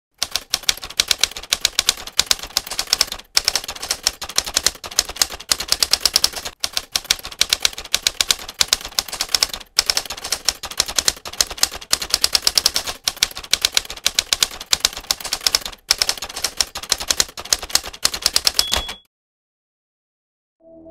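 Manual typewriter keys clacking rapidly in runs of strokes with short pauses between them, ending with a brief high ring just before the typing stops, about two seconds before the end.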